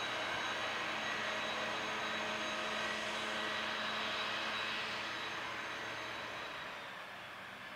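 Multiple tie tamper running on the track: a steady engine drone with a thin high whine, getting quieter over the last few seconds.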